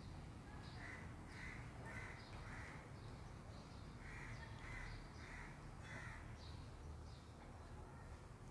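A crow cawing faintly, two runs of about four caws each, over a low steady hum.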